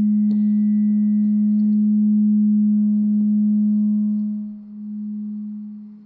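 A single low bass note held steady, almost a pure tone. It dips and swells again near the end, then cuts off.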